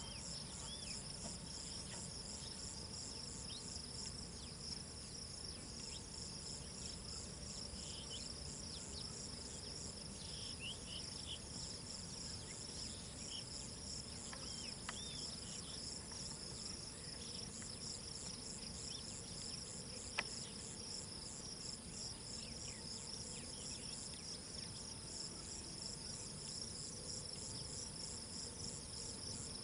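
Insects chirring steadily, a high, evenly pulsed trill, with a few faint short chirps near the middle and a single click about twenty seconds in.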